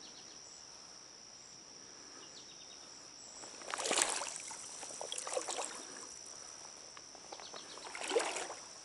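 Steady high chirring of crickets and other insects, with water sloshing and splashing in three bursts, about four, five and eight seconds in.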